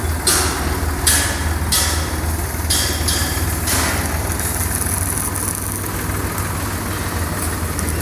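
Forklift engine idling steadily while it handles a heavy chassis, with several short hisses during the first half.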